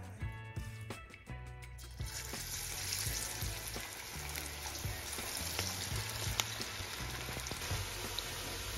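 Background music with a bass line, then about two seconds in, onion pakodas made of sliced onion in gram-flour batter are dropped into hot oil in a kadai and start deep-frying with a steady, dense sizzle.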